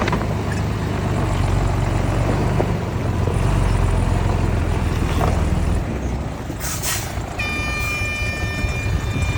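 Heavy diesel earthmoving machinery runs steadily with a deep engine rumble. About seven seconds in there is a short hiss, and then a high, steady squeal with several pitches sets in and carries on.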